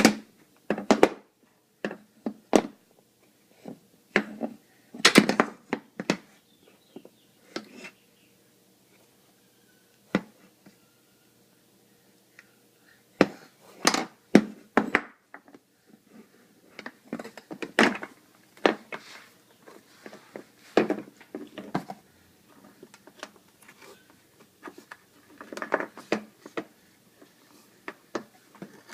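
Irregular knocks, clacks and thunks of a baby handling an open dishwasher's rack and the utensils in it, in clusters with short pauses between.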